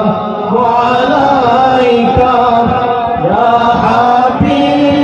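Male voices chanting a melodic Arabic salutation to the Prophet, the standing qiyam of a milad, in drawn-out, gliding phrases.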